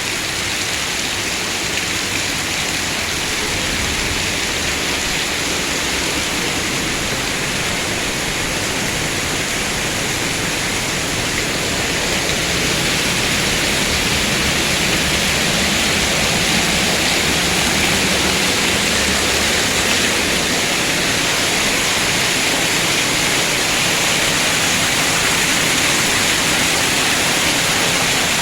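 Heavy rain falling steadily, a dense hiss that grows a little louder about halfway through.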